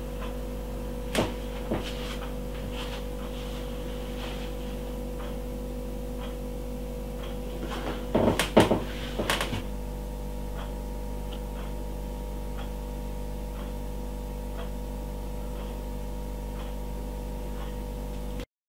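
Steady electrical hum with a few knocks and clicks: single knocks about a second and two seconds in, and a louder cluster about eight to nine and a half seconds in. After that come faint regular ticks, a little more than one a second, and everything cuts off suddenly near the end.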